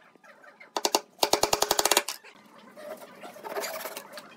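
A fast, even run of sharp clicks, about ten a second, lasting about a second, then a handsaw starting to rasp through pine dowel near the end.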